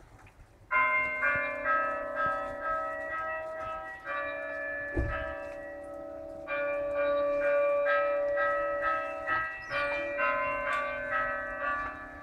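Church bells ringing, several bells struck over and over in an overlapping peal. The ringing comes in suddenly about a second in, eases slightly midway, swells again and fades near the end.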